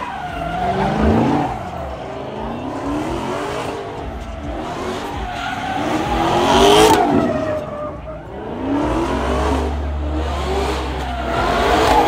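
Car engine revving up and down over and over, with tyres screeching loudest about seven seconds in: a car spinning donuts or drifting.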